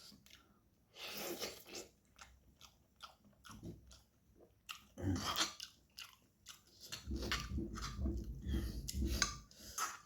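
Close-miked mouth sounds of a person eating noodles: wet chewing and biting in separate bursts, then quick, steady chewing, loudest in the last three seconds.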